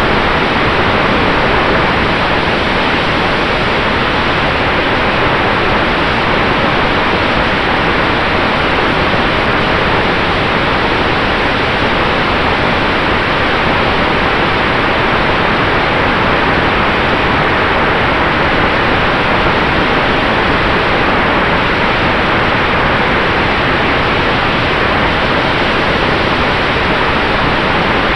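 Steady rush of wind and propeller wash on the onboard camera of an RC Maule model airplane in level flight, with a faint steady hum underneath.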